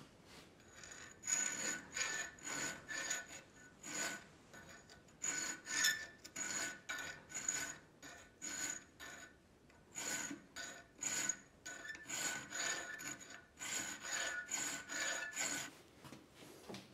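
Flat hand file rasping across a forged metal coffee scoop clamped in a post vise, short strokes about two to three a second, stopping near the end. This is the finishing clean-up filing after forging.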